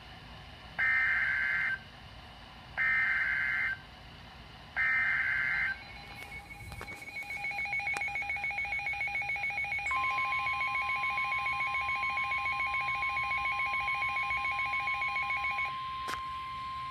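NOAA Weather Radio Emergency Alert System tones for a flash flood warning. The SAME digital header sounds as three one-second buzzy data bursts. A weather radio receiver's alarm then beeps rapidly and steadily. About ten seconds in, the steady 1050 Hz warning tone starts, and it carries on alone after the beeping stops near the end.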